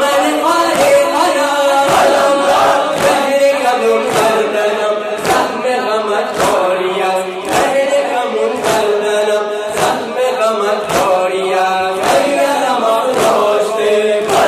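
A group of men chanting a noha in unison, led by a singer on a microphone, with the crowd's matam chest-beating landing together as a sharp slap about once a second.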